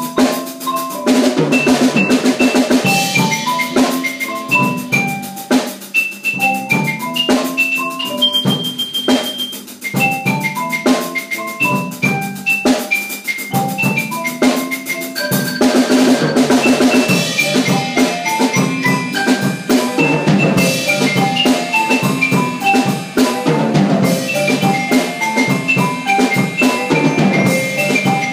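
Percussion ensemble playing: a drum kit keeps the beat under marimba and other mallet keyboards playing a quick run of melody notes over a low bass line. The band gets fuller about halfway through.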